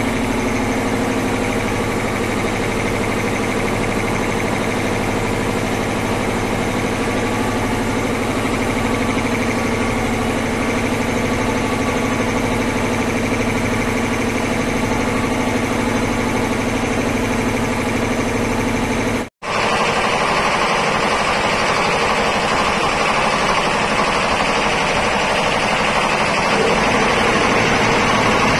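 Large reciprocating piston air compressor running under load, a steady rapid mechanical clatter with a hum underneath. It drops out for an instant about two-thirds through and comes back higher and hissier.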